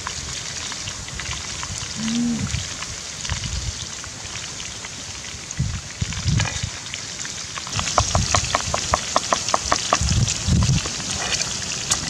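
Steady crackling sizzle from a pan over a wood fire. About two-thirds through, a wooden pestle starts pounding red chilies and salt in a clay mortar with dull thuds, along with a quick run of light ticks.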